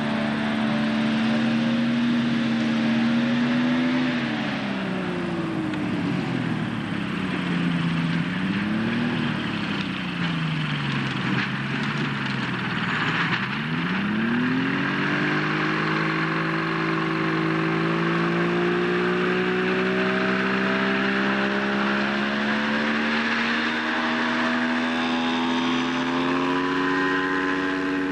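2SI AMW 100 hp two-stroke aircraft engine and propeller running at power, then throttled back about four seconds in as the plane settles from a low hop. Its pitch falls in two dips to a low idle, then rises slowly and steadily from about a third of the way through as power is brought back up.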